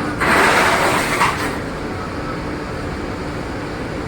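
Steady low rumble of plant machinery with a faint hum. Near the start there is a loud rushing, hiss-like noise lasting about a second and a half.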